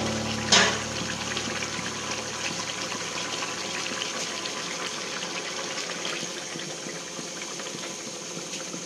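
Rohu fish curry simmering in a pan: a steady bubbling, sizzling hiss, with one short sharp tick about half a second in.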